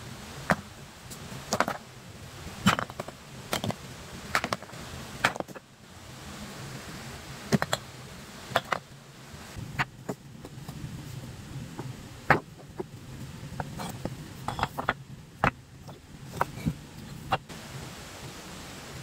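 An irregular series of sharp knocks and clicks, roughly one or two a second with short gaps, over a steady low background noise.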